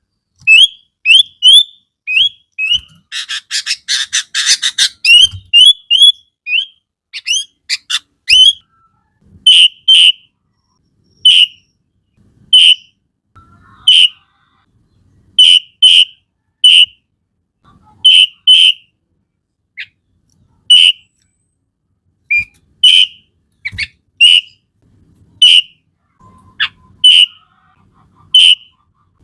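Sooty-headed bulbul singing: a quick run of short rising whistled notes broken by a harsh chattering rattle about three seconds in, then single sharp whistled notes repeated about once a second, some in pairs.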